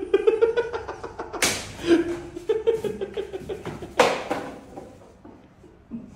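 An elastic rubber band snapping against a person's body twice, sharp smacks about a second and a half in and at four seconds in, the second the louder. Between the snaps come short, muffled vocal sounds from the person being hit, held back rather than screamed.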